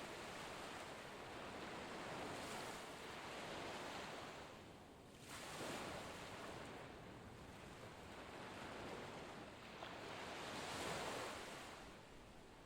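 Ocean waves washing on a shore: a steady rush of surf that swells and recedes, with one wave surging in about halfway through and another near the end.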